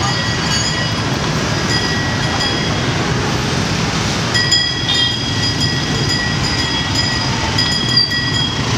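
Dense street traffic, mostly motorbikes and scooters: a steady rumble of many small engines, with horns beeping on and off over it.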